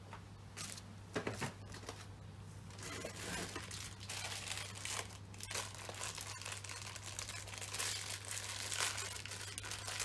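Plastic bird-food packaging crinkling as it is handled and opened by hand, a dense run of crackling, after a few knocks near the start.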